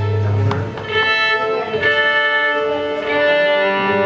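Violin playing long held notes that change pitch about every second, with an electric guitar underneath. A low held guitar note drops out about half a second in and comes back near the end.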